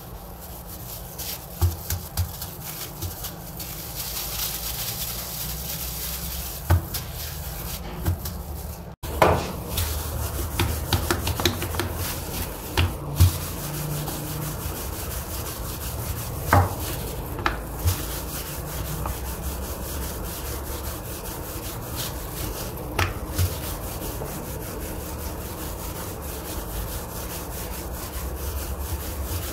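Wooden rolling pin rolling out dough on a marble countertop: a steady back-and-forth rubbing, with scattered knocks of the pin against the stone. It breaks off for a moment about nine seconds in.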